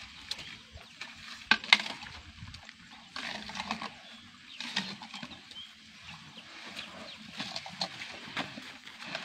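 Asian elephants feeding and rubbing close by: irregular crunching, cracking and scraping, the loudest pair of cracks about one and a half seconds in.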